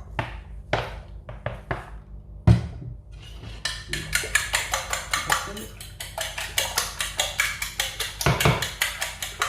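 Fork beating eggs in a bowl: a few separate clinks and a heavier knock, then fast, even clinking of the fork against the bowl at about five strokes a second.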